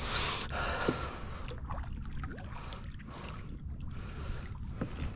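Water splashing and lapping around a canoe as it moves slowly through the water, with a louder splash right at the start.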